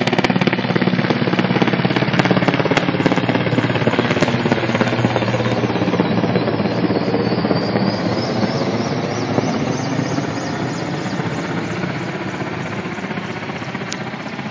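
Mi-8 transport helicopters flying past, their rotors beating rapidly over turbine noise. The sound is loud at first and fades gradually over the second half as they move away.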